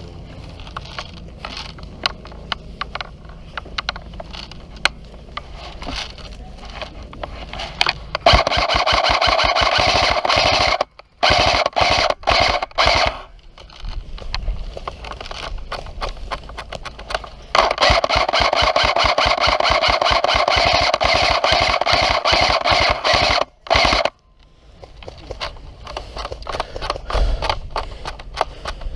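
Electric airsoft gun firing on full auto: two long bursts of rapid mechanical strokes over a steady motor whine, the first about eight seconds in and a longer one a little after the middle, each cutting off abruptly. Scattered sharp clicks come between them.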